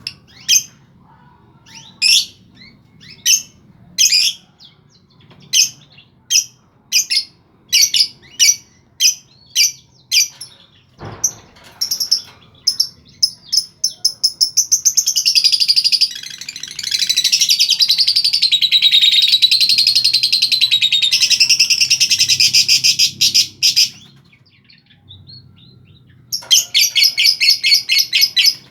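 Lovebird calling: a string of single sharp, high chirps about one a second, then a long rapid chattering trill lasting some ten seconds, and another fast burst near the end. This is the long nonstop trill that keepers call "konslet".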